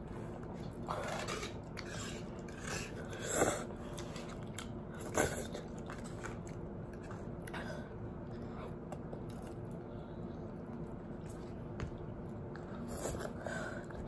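A person chewing and biting food, with a few short, separate eating noises in the first half, over a faint steady hum.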